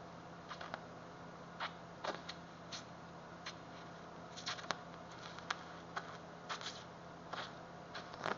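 Welding arc weld-brazing a crack in a Mack exhaust manifold with Everdur silicon-bronze filler: a steady low buzz with irregular sharp crackles and pops.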